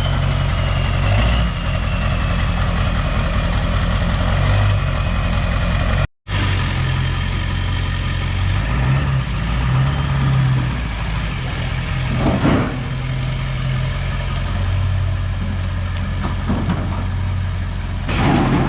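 An engine running at a steady idle. The sound cuts out for a moment about six seconds in, and the idle carries on after the break.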